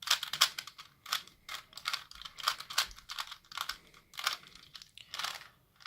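A 3×3 Rubik's Cube's plastic layers being turned quickly by hand, an irregular run of clicks and clacks as a move sequence of the last step of the solve is performed.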